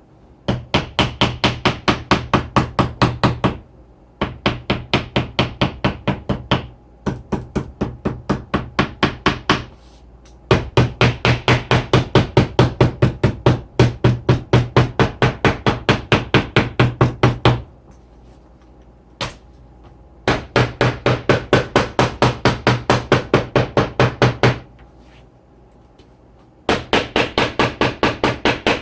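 Rapid, evenly spaced knocking, about six or seven strokes a second, in runs of a few seconds broken by short pauses, with a low hum under each run.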